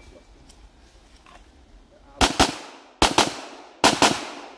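Pistol shots fired in quick pairs: six shots, two at a time, starting about two seconds in, each followed by a short echo.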